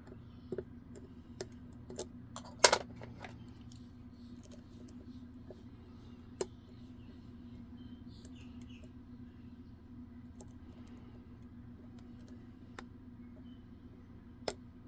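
Small metal clicks and scrapes of a lock pick working the pins of an Assa guideline lock, scattered and irregular, with the loudest cluster of clicks about two and a half seconds in. A steady low hum runs underneath.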